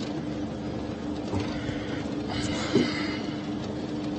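Steady background noise with a constant low hum, and one short knock nearly three seconds in.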